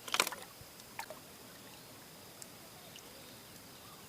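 A short splash of water near the start, then a smaller splash or knock about a second in and a few faint drips, from the net and fish being handled in shallow water.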